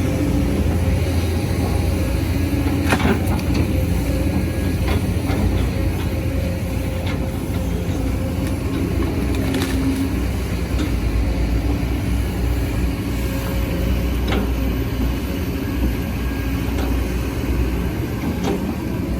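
Sumitomo SH210F hydraulic excavator's diesel engine running steadily under working load, with a handful of short, sharp knocks scattered through it.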